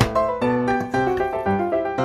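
Background piano music: a melody of notes struck one after another.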